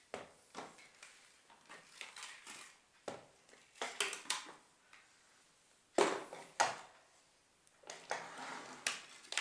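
Plastic body of a bagless vacuum cleaner being handled: scattered clicks, knocks and rustling, with two sharper knocks about six seconds in.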